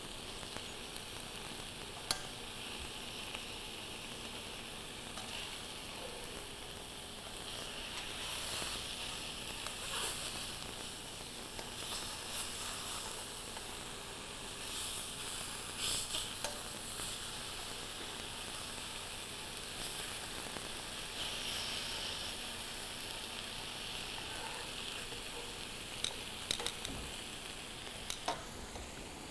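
Tofu cubes sizzling as they pan-fry in a caramelized sauce, a steady hiss that swells now and then, with a few light clicks.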